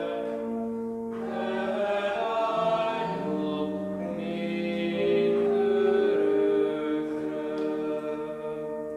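Congregation singing a slow hymn in long held notes.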